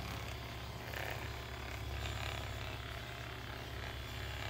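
Sharper Image Power Percussion massage gun running, its head hammering rapidly against a person's back with a steady low buzz.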